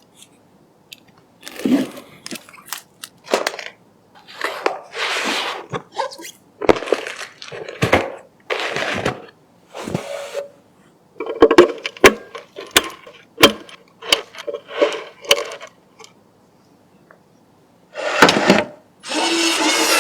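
Hands assembling computer parts: a run of sharp clicks and taps mixed with short scraping and rustling bursts. Near the end comes a longer, louder stretch of rustling with a faint steady hum beneath it.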